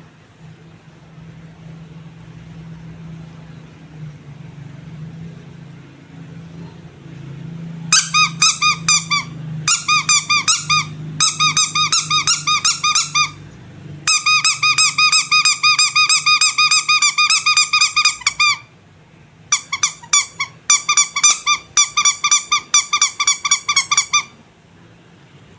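Squeaky rubber animal toy squeezed over and over in quick runs of sharp, high squeaks, about five a second, with short pauses between runs. Before the squeezing starts there is only a faint low hum.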